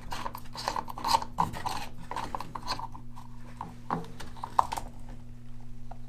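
Plastic drain pump filter plug of a washing machine being twisted and unscrewed by hand: a run of short, irregular rasping scrapes of plastic turning in its housing, with a few sharper clicks.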